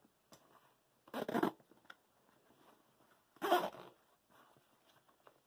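Zipper on a nylon backpack pocket pulled twice: two short rasps about two seconds apart.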